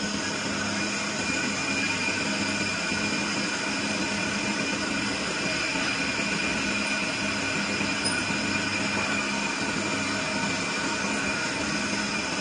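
Lathe running while a carbide tool cuts a 1.4301 (304) stainless steel pipe: a steady machine drone with a steady high tone from the cut over it.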